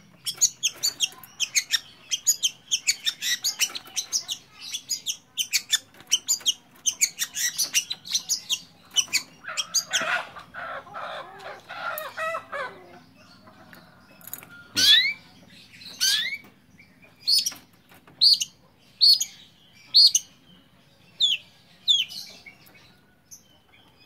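Long-tailed shrike (pentet) calling in its cage. It gives a dense run of fast high chirps for the first nine seconds or so, a scratchy chatter around ten seconds in, then single sharp slurred whistles about once a second. The keeper says the bird is in an over-aroused state ('over birahi').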